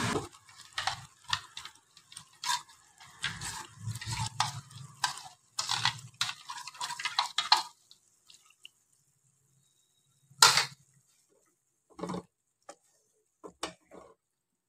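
Thick spinach purée being scraped out of a bowl into a non-stick frying pan, with irregular scrapes and clinks of a utensil against the bowl and pan for the first several seconds. Then a sharp knock about ten seconds in and a few lighter knocks near the end as the spatula works the pan.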